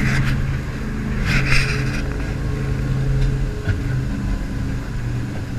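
Jet boat engine running steadily, with two short bursts of hiss near the start and about a second and a half in.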